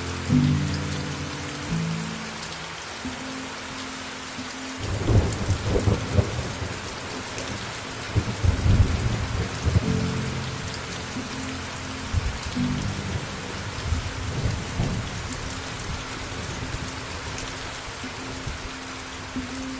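Steady rain, with thunder rumbling from about five seconds in for several seconds and again more faintly a little later. A few soft held music notes sound underneath.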